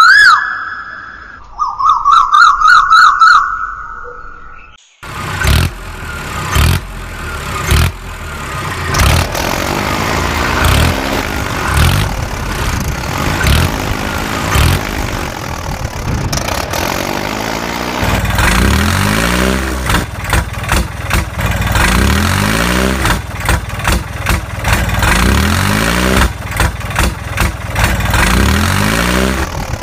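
A loud warbling, whistle-like tone for the first few seconds, then after a short gap a tractor engine sound effect, running steadily and then revving up again and again, a rising sweep every second or two through the second half.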